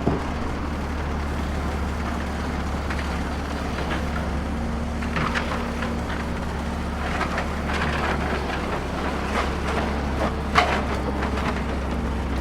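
Heavy-equipment engine rumbling steadily at a low pitch, with scattered clicks and clatters and one sharp knock about ten and a half seconds in.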